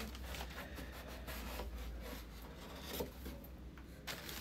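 Cardboard boxes scraping and rubbing against each other as a smaller box is pulled out of a larger one, with a couple of sharper knocks near the end.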